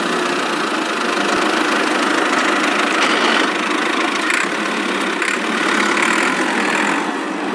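Steady engine-like running of a toy mini tractor as it tows a trolley loaded with wood.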